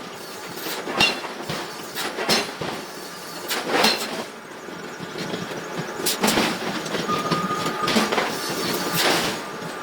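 Heavy iron and steel pieces clanking and scraping in a forging shop: irregular metal knocks and clanks, with a brief ringing tone about seven seconds in.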